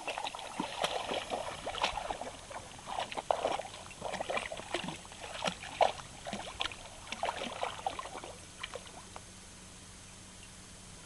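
A puppy wading and pawing in shallow water: an irregular run of splashes and sloshing that dies away about eight seconds in.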